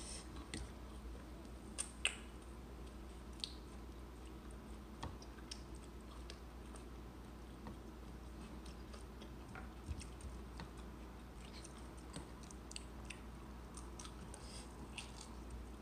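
Faint eating sounds: chewing, rambutan rinds being peeled, and scattered light clicks and taps of a spoon in a plastic bowl, the sharpest clicks about two seconds in.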